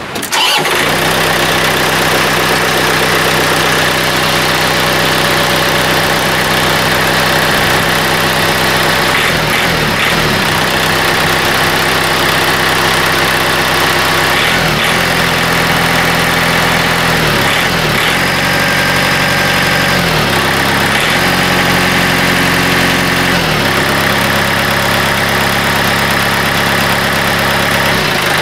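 John Deere 110 TLB's diesel engine starting and running for about half a minute, with its speed stepping up and down a few times in the second half. It is run briefly after an oil change to circulate the fresh oil before the level is checked.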